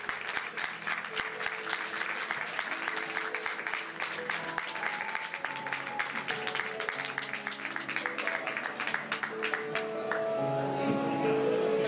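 Audience applauding over background music of held, pitched notes. The clapping thins out near the end as the music gets louder.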